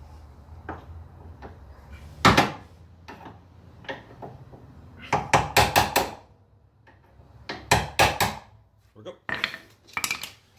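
Hand tools knocking and tapping on metal while a brake-hose retaining clip is worked into its bracket: one sharp knock about two seconds in, then quick clusters of taps.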